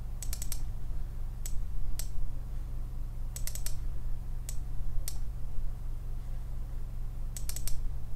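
Computer mouse clicking, single clicks and quick runs of three or four, over a steady low electrical hum.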